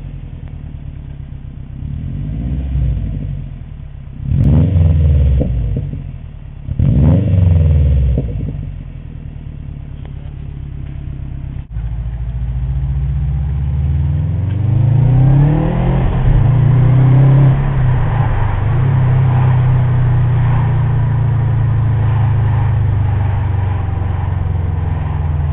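2008 Subaru WRX's turbocharged flat-four through a TurboXS dual-exit catback exhaust, idling and then revved twice, the pitch rising and falling each time. After a cut it accelerates with a long rising pitch and settles into a steady drone at cruising speed, heard from inside the car.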